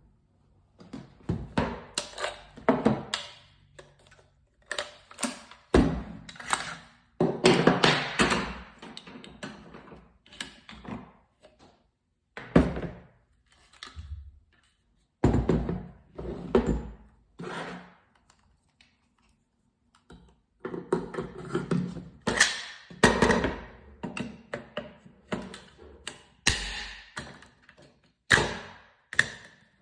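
Tokyo Marui MWS gas blowback airsoft rifle being taken apart and put back together by hand: a string of clicks, knocks and snaps from parts seating and latching, with a few longer sliding scrapes and short pauses between.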